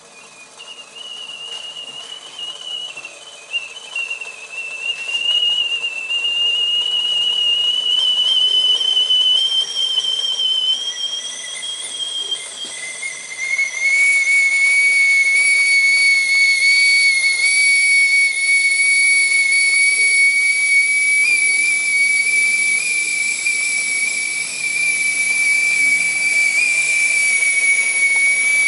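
Whistling kettle's steam whistle sounding as the water boils. A wavering note swells over the first few seconds and climbs slightly, then about halfway through gives way to a steadier, louder, slightly lower note that holds.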